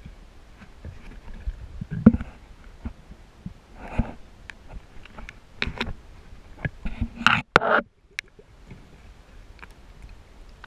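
Muffled underwater knocks, clicks and scrapes from a spearfishing rig and camera housing moving among submerged branches, with a tilapia held on the spear shaft. The knocks come irregularly, with a loud one about two seconds in and a cluster of louder knocks and rustles a little past the middle that cuts off suddenly.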